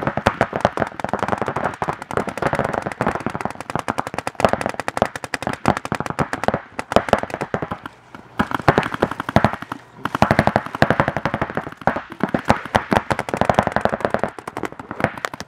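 Several paintball markers firing rapid strings of shots, the pops overlapping into a near-continuous rattle. There are brief lulls about eight and ten seconds in.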